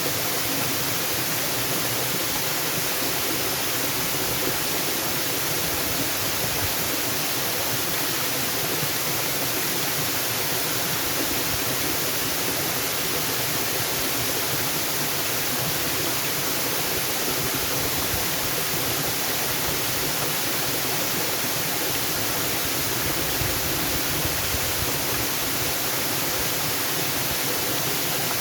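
Waterfall rushing steadily, an even roar of falling water with no change in level.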